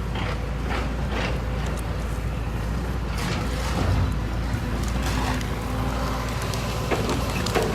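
Excavator engine running steadily, with scattered knocks and scrapes from debris being handled.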